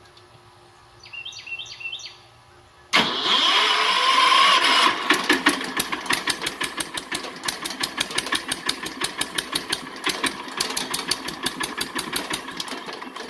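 Kohler K-series single-cylinder engine turned over by its electric starter about three seconds in, catching within a couple of seconds and running on propane with a steady pulsing beat, but below full speed. It gets gradually quieter toward the end.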